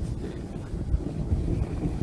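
Wind buffeting the microphone on a moving dog sled: an uneven low rumble.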